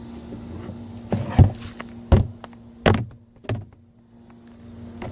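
A series of sharp knocks and thumps, about six spread over five seconds, over a steady low hum.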